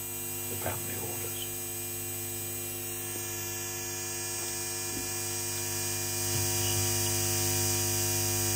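Steady electronic buzzing hum from a circuit-bent VHS video recorder, a drone with many even overtones that grows a little louder and brighter after about six seconds.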